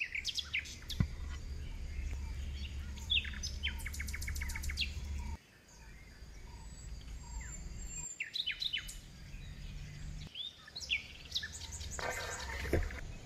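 Small birds chirping, with many short quick calls and a rapid trill of repeated notes. A low steady rumble runs underneath and cuts off suddenly about five seconds in.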